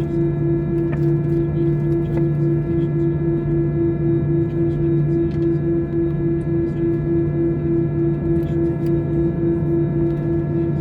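Steady cabin hum of an Airbus A320 with its CFM56 engines running, with a higher tone that pulses evenly about four times a second over a constant low drone.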